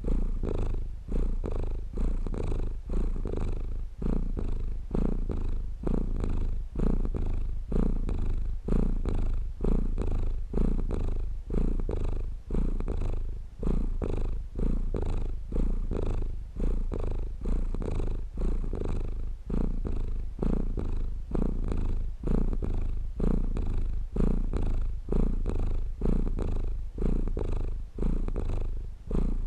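A domestic cat purring steadily. The deep, low rumble swells and eases in a regular rhythm, about once every second and a half, with the cat's breathing.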